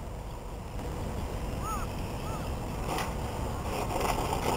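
Radio-controlled P-47 Thunderbolt model plane's motor, growing louder as the plane comes in low to land, over wind noise on the microphone. A single sharp click about three seconds in.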